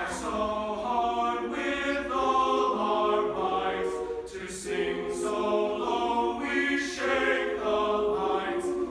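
Male a cappella choir singing in several-part harmony, holding chords that step from one to the next about every second, with the sung words' s-sounds hissing through now and then.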